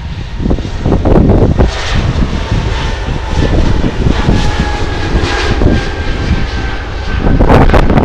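Jet airliner's engines at takeoff power on the takeoff roll, a steady whine with thin high tones, under heavy wind buffeting on the microphone.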